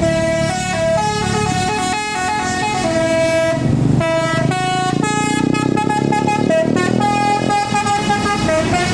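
A tour bus's 'basuri' telolet horn playing a tune of held notes that step up and down in pitch, over the low rumble of the bus's engine.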